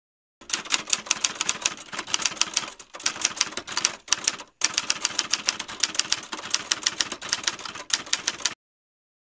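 Typewriter keystroke sound effect: rapid clacking keys, several a second, with two short breaks, cutting off suddenly about a second before the end.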